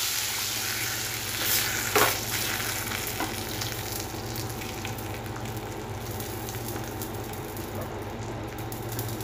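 Hot tempering oil with mustard seeds, cumin, urad dal, dried red chilli and curry leaves sizzling as it settles into a pan of luffa and moong dal kootu. The sizzle dies down over the first second and then goes on steadily, with a couple of sharp clicks about one and a half and two seconds in.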